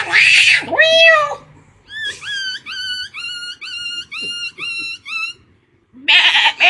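A person imitating animal calls: two cat-like meows, then a run of about nine short, evenly spaced rising chirps, and a loud bleat-like call near the end.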